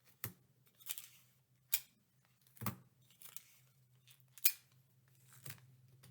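Small pieces of sticky tape being pulled from a roll and cut off: about seven short, sharp rips and snips, roughly one a second, over a faint low hum.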